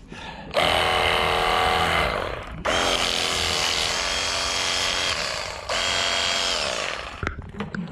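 Jet Hawk cordless pressure washer running in three spells of a few seconds each: the motor and pump whine over the hiss of the spray, and the pitch sags away as each spell ends.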